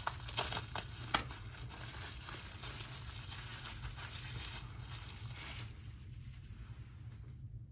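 Wrapping crinkling and tearing as a candle is unwrapped by hand. Sharp crackles at the start, then softer rustling that dies down about five seconds in.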